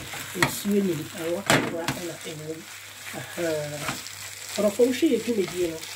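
Minced-meat filling sizzling as it fries in a non-stick pan, stirred and scraped with a spatula, with clicks as it knocks the pan. A person's voice is heard over it in stretches.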